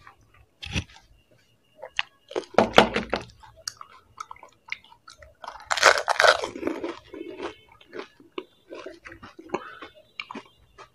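Close-up chewing and crunching of panipuri: crisp fried puri shells breaking between the teeth, with two louder bouts of crunching about 3 and 6 seconds in.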